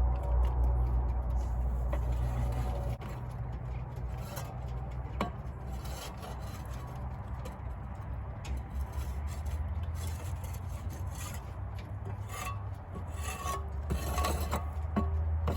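Rubbing and scraping on wood, with a few light knocks, over a steady low rumble that drops about three seconds in and comes back near the end.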